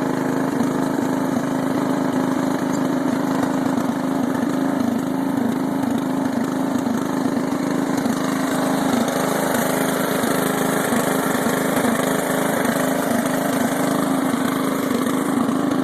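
The 17 hp Briggs & Stratton engine of a Scotts/John Deere S1742 lawn tractor running steadily at an even speed.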